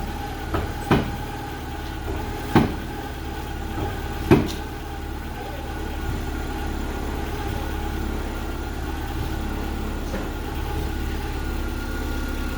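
A car engine idling steadily. A few sharp knocks come in the first four or five seconds.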